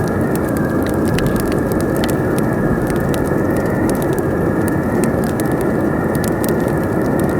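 Wood fire crackling with frequent sharp pops and clicks over a steady, low rush of wind.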